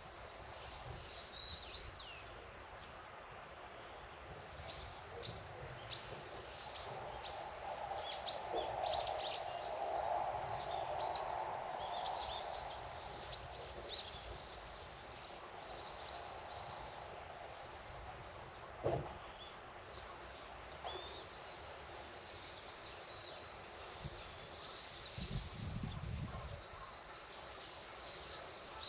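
Small birds chirping in quick, high calls over outdoor background hiss. A low hum swells and fades around the middle, and there is a single sharp click later on.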